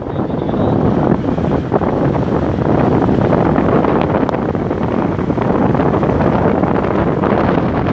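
Wind buffeting the microphone of a moving vehicle, mixed with the vehicle's road and engine noise: a loud, steady rush.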